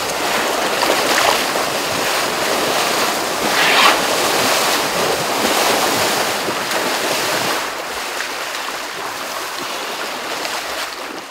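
River water rushing and splashing around Asian elephants wading through the shallows, with a louder splash about four seconds in; it fades out near the end.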